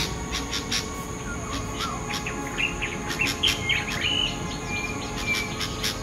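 Young bulbuls calling at the nest: a rapid run of short, high chirps, with a few rising and falling calls about three to four seconds in.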